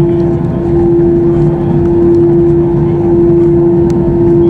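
Airbus A321 after landing: a steady, unchanging mechanical drone with one strong constant hum tone.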